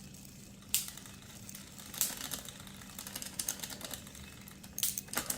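Bicycle drivetrain clicking as the front derailleur is shifted and the chain is worked over the chainrings: a few sharp shifter clicks and runs of quick small ticks, over a faint steady hum.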